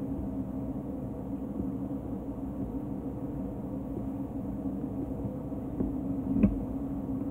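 Steady low machine hum filling the room, with a sharp clink of a fork against a plate about six and a half seconds in.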